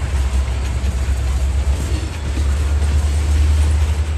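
Freight train of tank cars, hoppers and gondolas rolling past on steel rails: a steady, heavy rumble of wheels on track that grows a little louder toward the end.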